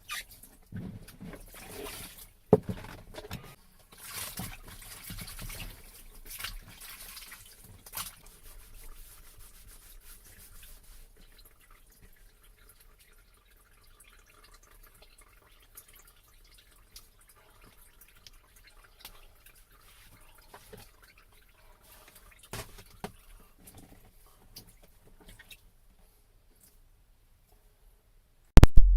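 Water splashing and dripping in irregular bursts in a small enclosed space, thinning to a few faint drips. A sudden loud knock comes near the end.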